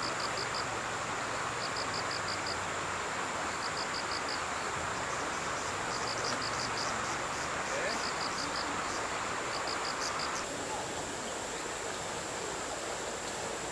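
Insects chirping in short trills of about five quick pulses, repeated every second or so, over a steady high-pitched insect drone and outdoor hiss. The chirping stops abruptly about ten seconds in, leaving the steady drone.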